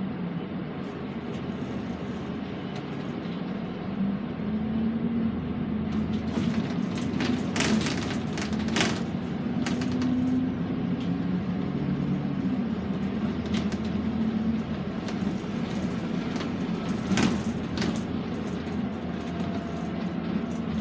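Engine and drivetrain of an Alexander Dennis Enviro400 double-decker bus running under way, heard inside the upper deck, its note rising and falling as the bus speeds up and slows. A few sharp clatters come between about six and nine seconds in and again near seventeen seconds.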